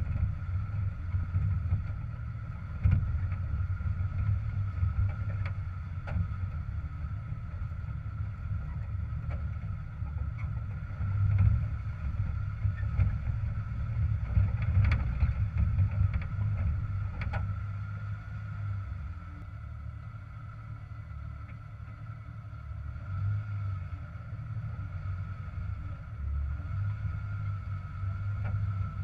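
Jeep Wrangler TJ engine running low and steady while crawling over rocks, with a thin steady whine above the rumble and a few scattered knocks from the rocks.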